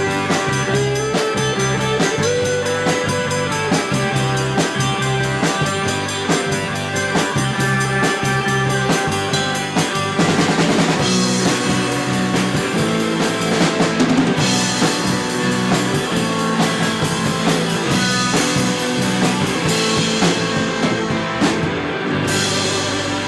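Rock music with a drum kit and guitar, a fast steady beat.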